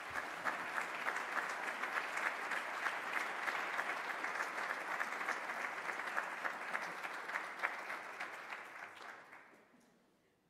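Audience applauding, a steady clatter of many hands clapping that fades away near the end.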